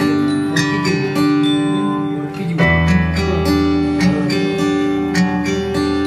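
Instrumental background music led by plucked guitar over a sustained bass, the bass note changing about two and a half seconds in.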